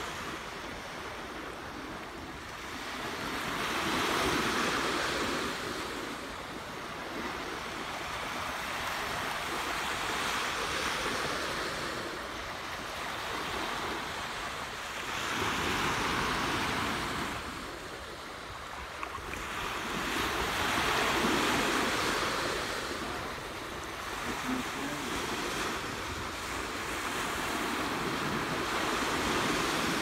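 Small ocean waves breaking and washing up on a sandy beach. The surf swells and eases every five or six seconds.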